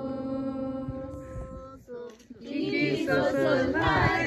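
A chanted mantra with long held tones stops about two seconds in. Then a group of voices calls out together, loud and overlapping, in a Tibetan ritual cry.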